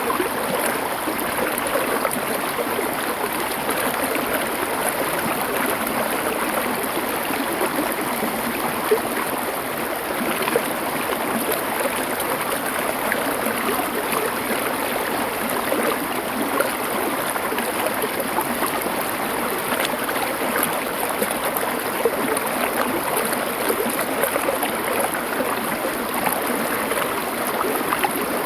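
Shallow river running over stones, a steady rushing and gurgling of water with small splashes.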